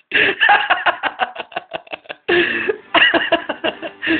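People laughing in quick repeated bursts, with a brief held high note partway through.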